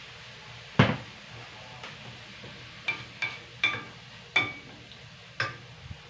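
Wooden spatula stirring chicken in a stainless steel pan, knocking against the pan six times, the loudest about a second in and several of the later knocks leaving a brief metallic ring. A low sizzle of the sautéing meat runs underneath.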